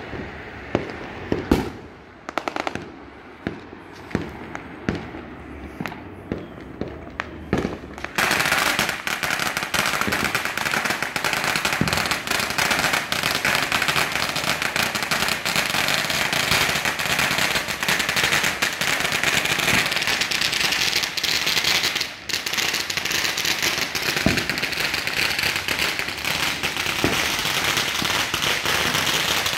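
Fireworks going off: separate sharp bangs about a second apart. About eight seconds in, firecrackers take over in a dense, unbroken crackle that carries on, dropping out only briefly once.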